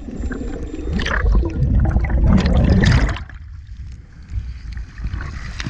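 Underwater bubbling and rushing water from a scuba diver's exhaust bubbles. About three seconds in it drops suddenly to quieter sea-surface water lapping and splashing, with a sharp splash near the end.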